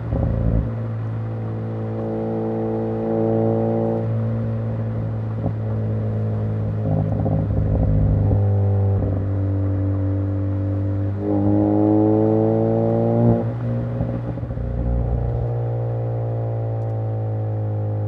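Turbocharged Ford Focus engine and exhaust under way, droning steadily at cruise with a few step changes in pitch. About eleven seconds in it pulls harder and rises in pitch for two seconds, then drops sharply at a gear change.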